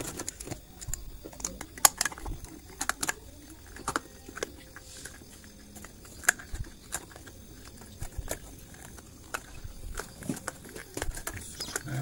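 Irregular clicks, taps and light rubbing as hands handle a Sharp washing machine's drain valve: its plastic plunger, spring and rubber bellows seal.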